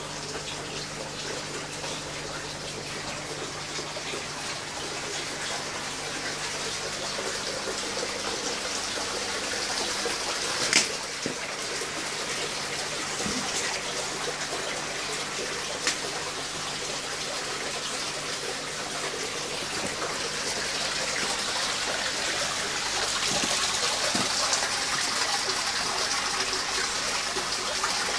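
Steady rushing and splashing of water pouring from the aquaponics system's return pipe into the fish tank, growing louder near the end. Two brief knocks, a little before and just after the middle.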